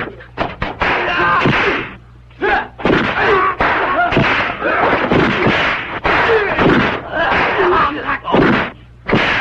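Kung-fu film fight sound: shouts and cries mixed with sharp punch-and-kick impact effects, coming in quick bursts.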